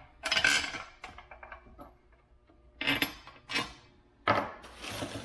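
Metal tools and small parts clinking and clattering on a workbench, in several separate bursts: one about half a second in, two around three seconds in, and a longer clatter near the end.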